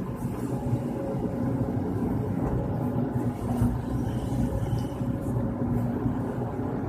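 Excavator's diesel engine running steadily in a low drone, with a few faint clicks.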